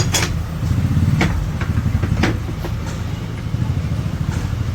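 An engine idling steadily with a low pulsing drone, with several sharp clicks and knocks on top of it.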